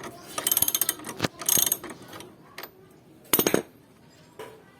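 Ratchet socket wrench clicking in three short bursts of rapid clicks as an 8 mm bolt on the scooter's front brake caliper is turned out.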